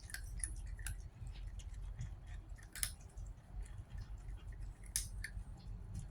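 A cat chewing and crunching its food, a run of irregular crisp clicks, with the sharpest crunches about three and five seconds in.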